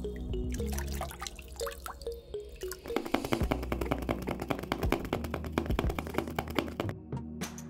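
Water poured from a small cup into a miniature trough, over background music. About three seconds in, the pour gives way to rapid, even clicking from the clockwork motors of walking wind-up plastic toy cows.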